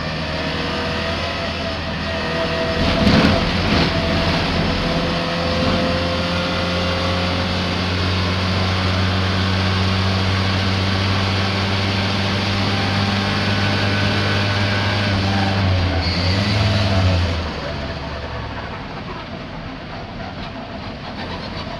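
Racing car engine running under load at a held, steady pitch, with a short burst of noise about three seconds in and the note dropping away about seventeen seconds in. The engine is misfiring.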